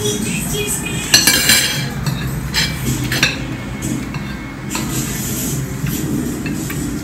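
Forks and spoons clinking and scraping on ceramic plates as people eat, with a few sharper clinks, the loudest a little after a second in.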